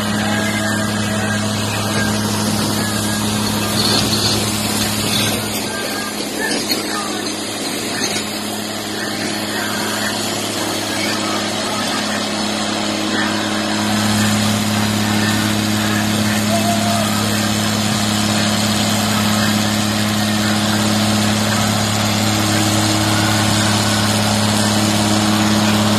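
John Deere 4440's turbocharged six-cylinder diesel working hard at steady revs, pulling the weight sled slowly down a tractor-pull track. The drone holds one pitch and grows louder over the second half as the tractor comes closer.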